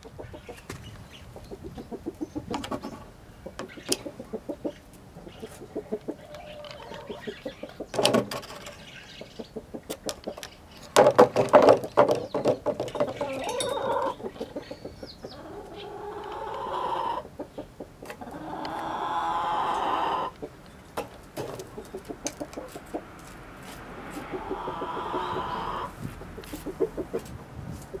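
Nagoya Cochin hens clucking close by, with several longer drawn-out calls, over many sharp taps as they peck at feed in a wooden feed box.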